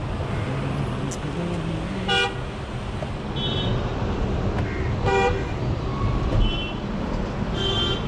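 Traffic rounding a hairpin bend on a ghat road: truck and car engines running with tyre noise, and several short horn toots, the loudest about two seconds in and again about five seconds in.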